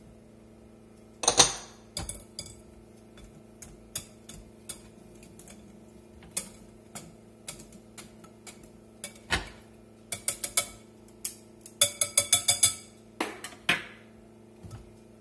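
Metal balloon whisk clinking against a glass mixing bowl while stirring pancake batter: irregular taps, the loudest about a second in, and a quick run of clinks about twelve seconds in.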